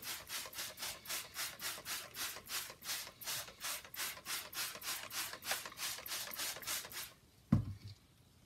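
Rhythmic back-and-forth scrubbing, about four strokes a second, for about seven seconds, then it stops and a single thump follows.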